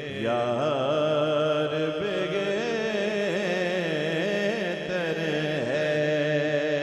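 Naat recitation: a man's voice singing long, wavering melismatic lines with no breaks for words, over a steady held tone underneath.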